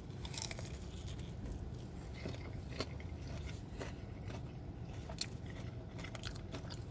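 A man biting into a crispy fried chicken tender and chewing it, with soft crunches and clicks scattered throughout and one sharper crunch about five seconds in.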